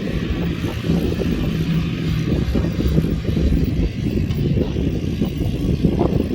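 Quad (ATV) engine running while being ridden, with a loud, continuous low rumble and a steady engine note through the middle.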